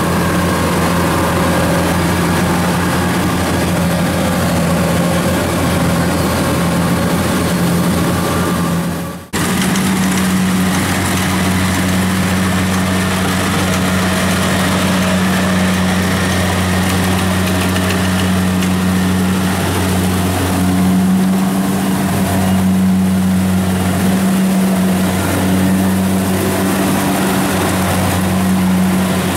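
Kubota rice combine harvester's diesel engine running steadily under load while the machine cuts and threshes rice, a constant deep drone with mechanical clatter over it. The sound drops out briefly about nine seconds in, then resumes just as before.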